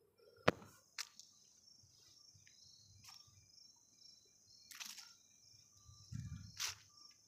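Faint outdoor ambience with a steady high hiss, broken by clicks and brief rustles from a handheld phone being moved while filming. The loudest is a sharp click about half a second in, and there are two short rustles in the second half.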